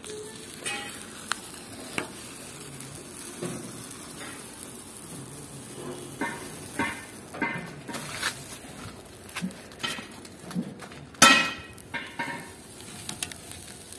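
Masking tape being peeled off the freshly spray-painted sheet metal of a tractor: a run of short, irregular crackling rips, the loudest about eleven seconds in.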